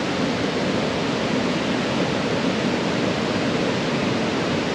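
Waterfall and river water rushing steadily, an even unbroken wash of sound.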